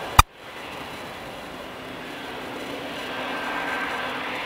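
Jet engines of a taxiing Boeing 777, a steady engine noise that grows slightly louder toward the end, with a faint hum joining about one and a half seconds in. A sharp click followed by a brief dropout just after the start.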